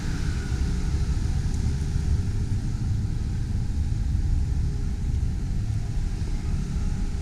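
Outdoor street ambience: a steady low rumble with no distinct events.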